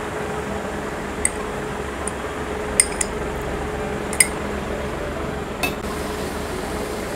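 A spoon clinking against a bowl and a metal pot about five times, sharp and brief, as condensed milk is scraped out and stirred into a mixture of semai and coconut, over a steady hum.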